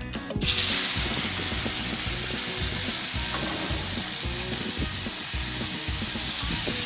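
Marinated chicken hitting a preheated Blackstone flat-top griddle and sizzling loudly, starting suddenly about half a second in and then continuing steadily.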